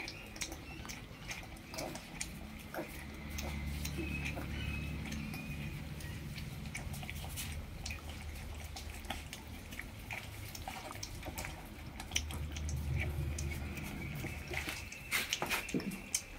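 Four puppies lapping milk from a steel plate: an irregular run of quick wet clicks and slurps.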